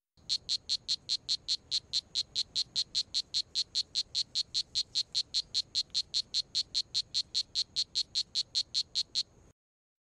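Strawberry poison dart frog (Oophaga pumilio) calling: a long, even train of short high chirps, about four and a half a second, stopping suddenly about nine seconds in.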